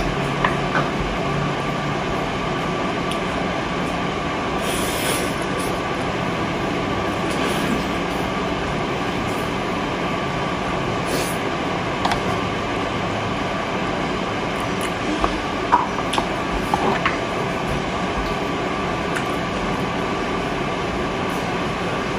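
Steady background noise throughout, with a few short clicks of a wooden spoon against the plate and dishes.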